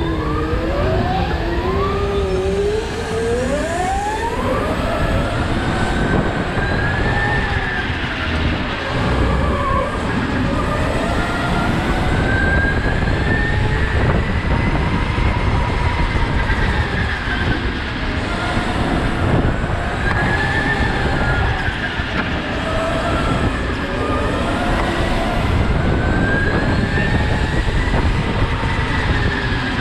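Onboard sound of an electric go-kart at racing speed. The motor's whine climbs steeply over the first few seconds as the kart accelerates, then keeps rising and falling with each straight and corner, over a steady low rumble of tyres and chassis.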